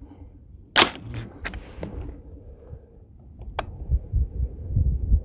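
AR-15 rifle being handled and readied on a shooting bench: a sharp metallic clack about a second in, a few lighter clicks after it, and one more sharp click a little past halfway, with low rumbling handling noise near the end.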